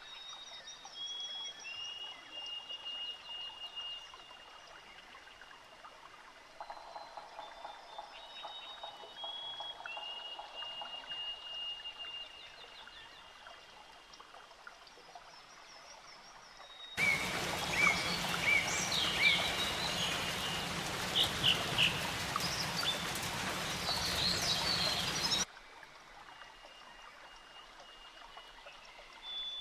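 Tropical forest ambience: high, thin whistled bird calls and a faint pulsed call over a quiet background. From just past halfway until about four seconds before the end, a louder stretch of running water with many bird calls over it cuts in and then cuts off sharply.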